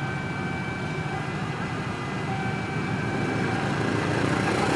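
CC206 diesel-electric locomotive approaching with its train, a steady low rumble that grows slowly louder as it nears.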